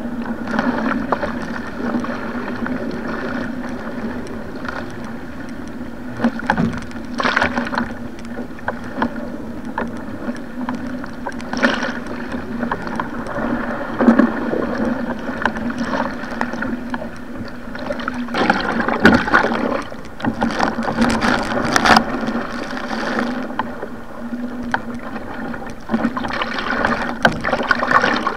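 Stellar SR G2 surfski running downwind through rough sea: water rushing and splashing along the hull, with wind noise, and several louder splashes from waves or paddle strokes.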